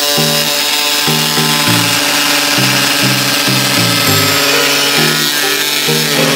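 A reciprocating body saw running steadily as it cuts through the sheet-metal fender, a high buzzing hiss, heard over background music with a bass line changing note every half second or so.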